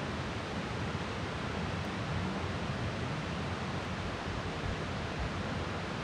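A steady, even rushing noise with no breaks or distinct events.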